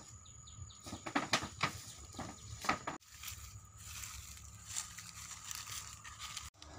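Footsteps crunching and rustling through dry leaf litter and undergrowth: irregular crackles, busiest in the first three seconds and sparser after.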